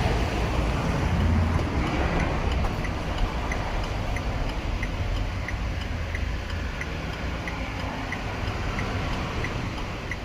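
Turn-signal ticking of a 2014 Chevrolet Express, about one and a half even ticks a second starting a few seconds in, while the left turn signal is switched on. A steady low rumble runs underneath.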